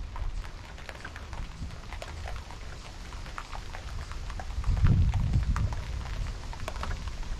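Thick snow foam crackling and fizzing as its bubbles pop and it drips down a box truck's sides, a scatter of small ticks. Wind buffets the microphone, most strongly about five seconds in.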